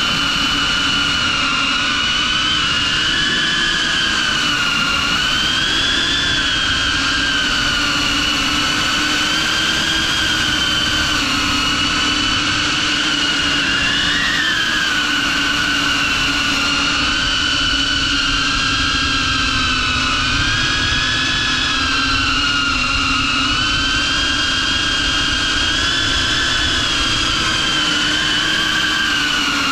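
6S-powered FPV quadcopter's brushless motors and propellers whining steadily in flight, the pitch rising and falling slightly throughout, heard from a camera on board the drone.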